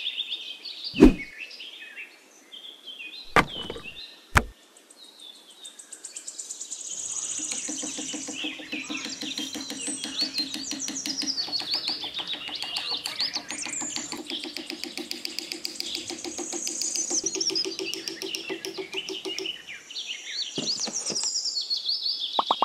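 Birds chirping and calling, with three sharp knocks in the first few seconds and a steady low buzz with a fast pulse from about seven seconds until near the end.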